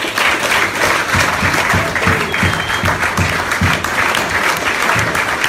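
A roomful of people applauding, with one pair of hands clapping close by, about three to four claps a second.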